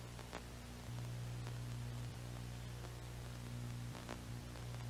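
Faint steady electrical hum with a stack of overtones under a soft hiss, with a few faint clicks and no other sound.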